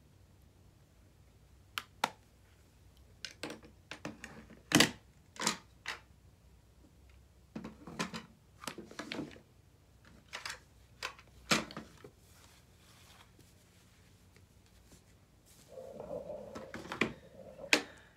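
Makeup items being rummaged through and handled: scattered clicks and knocks as they are picked up and set down, ending in a short rustle and a couple of sharper clicks.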